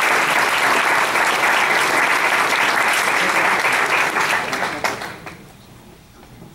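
Audience applause, many hands clapping densely and steadily, dying away about five seconds in.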